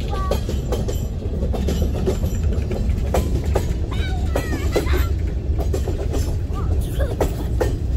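Freight train boxcars rolling past close by: a steady low rumble with irregular sharp clacks and knocks from the wheels on the rails.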